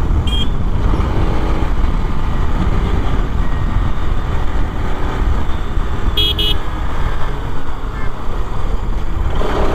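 Bajaj Pulsar RS 200's single-cylinder engine on its stock exhaust running under way, with heavy wind rumble on the rider's mic. A vehicle horn toots briefly about half a second in, then twice in quick succession about six seconds in.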